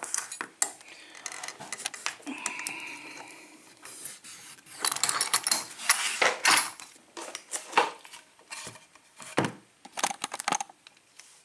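Small metal lockpicking tools and lock parts clicking and clinking together as they are handled and set down, with a short metallic scrape about two seconds in.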